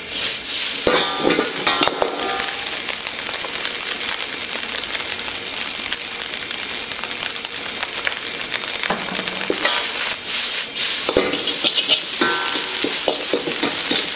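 Fried rice sizzling in a hot wok while a steel ladle scrapes and knocks against the wok as the rice is stirred and tossed. The ladle strokes come in quick runs near the start and again over the last few seconds, with a steady sizzle between.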